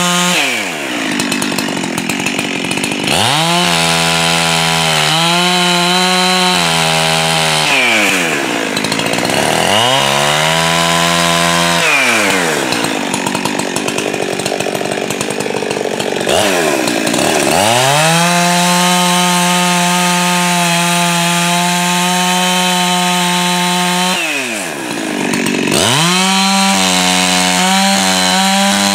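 Jonsered two-stroke chainsaw running at high throttle while cutting a log. Its pitch drops several times as the chain loads up in the wood and climbs back as it frees up between cuts.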